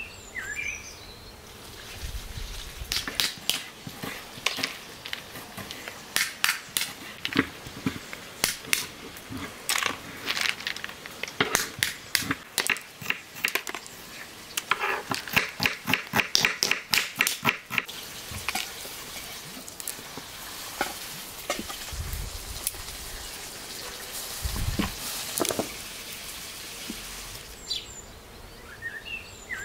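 Walnut shells being cracked open with a knife blade: irregular sharp cracks and snaps, with a quick run of clicks a little past halfway. A bird chirps near the end.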